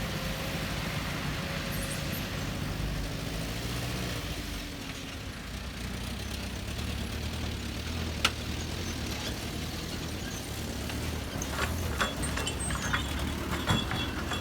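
A heavy machine's engine running steadily at low revs, with a sharp click about eight seconds in and a few clacks and knocks near the end.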